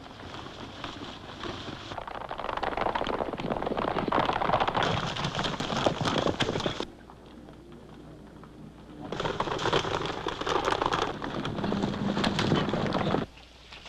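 Galloping hooves of a group of horses: a dense, rapid clatter that drops away abruptly about halfway through, returns a couple of seconds later, and cuts off again just before the end.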